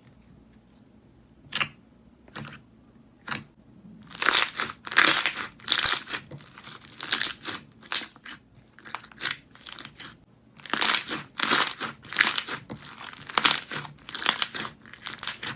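Slime being squeezed and pressed by hand, crackling and crunching. A few single crackles come first, then dense crunching from about four seconds in, with a brief pause near ten seconds.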